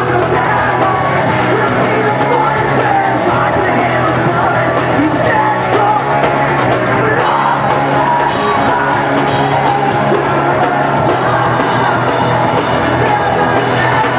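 Live rock band playing loud, distorted guitars and drums with a singer's voice over them, the sound echoing in a large hall.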